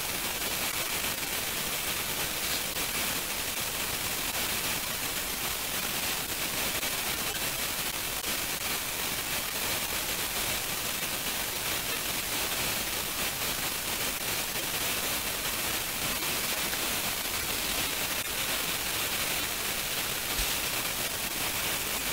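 Steady background hiss of the recording, with no speech, brightest in the high range. One faint click comes near the end.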